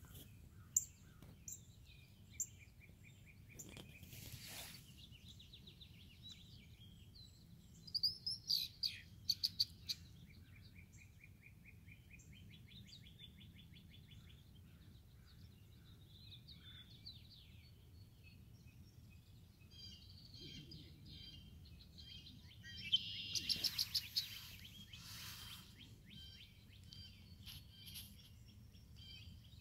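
Wild birds singing in the background: several fast high trills and bursts of chirps, the loudest about eight seconds in and again near the end, over a faint low hum.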